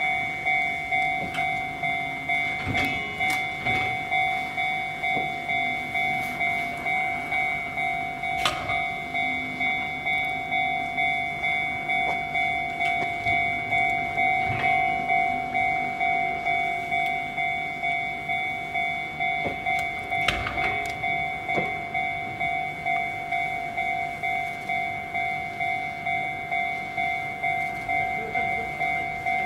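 Japanese railway level-crossing alarm ringing steadily, a bright repeated tone about three strikes every two seconds, as an Izuhakone Railway 5000-series electric train rolls slowly through. A few sharp clicks of the train's wheels over rail joints and points come through now and then.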